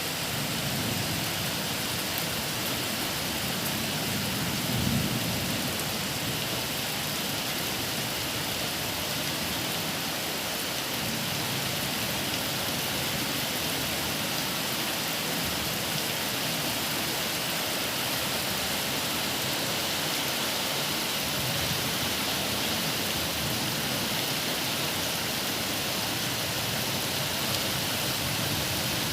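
Steady rain falling, an even hiss that does not let up. About five seconds in there is a brief low thump.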